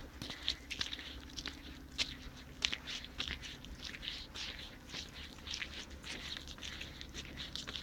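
Footsteps crunching and rustling over the forest floor: many irregular small crackles.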